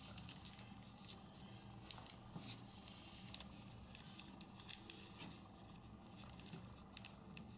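Soft crinkling and rustling of a square of origami paper being creased and handled by hand, many small crackles, as its corners are folded in to the centre. A faint low hum runs underneath.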